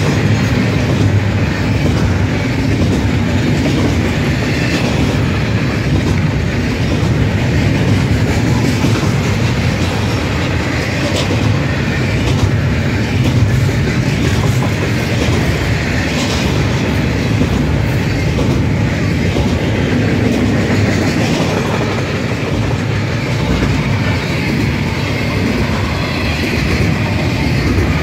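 Double-stack container freight train rolling past fast: a steady, loud rumble of wagons with the wheels clicking over the rail joints.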